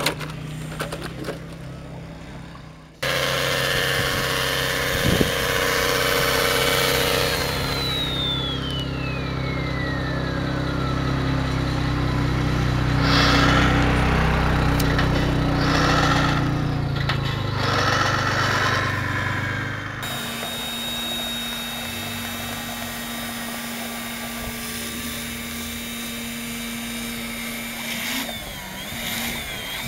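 Electric motors and gearboxes of radio-controlled scale trucks whining as they crawl over rocky slopes. The sound changes abruptly twice, about 3 s and 20 s in, where the shots are cut.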